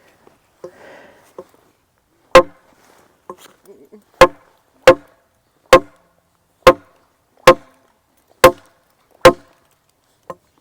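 A machete chopping into wood: two light taps, then eight sharp blows about one a second, each with a brief metallic ring from the blade.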